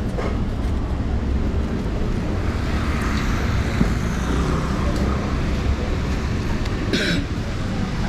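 Steady low rumble of busy street noise, with a softer hiss in the middle and a short sharp hiss about seven seconds in.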